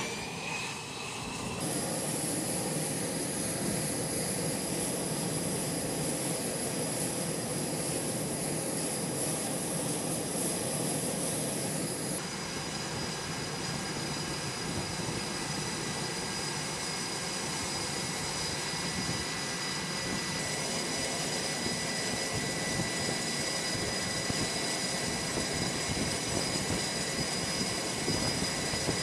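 F/A-18 fighter's jet engines running on a carrier deck: a steady rush of jet noise with high, steady whining tones over it, its character shifting abruptly twice.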